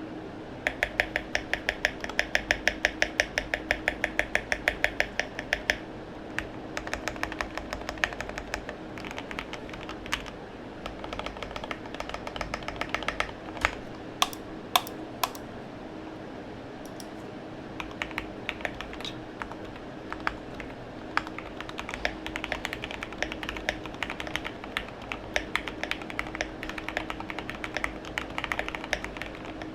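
Typing on a mechanical keyboard with lubed Gateron Milky Yellow linear switches in a full aluminium RK61 case. It starts with a fast, even run of keystrokes for about six seconds, then goes into irregular typing with a few louder single strokes around the middle, over a faint steady hum.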